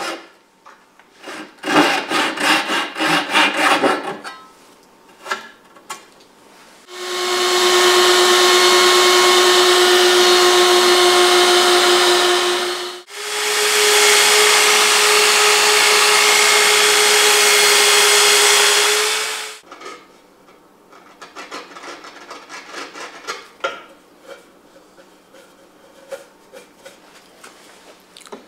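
Handsaw strokes cutting walnut for the first few seconds, then a sliding miter saw run twice, each run about six seconds long with a steady whine as it spins up, cuts and winds down. Scattered light knocks of wood being handled follow near the end.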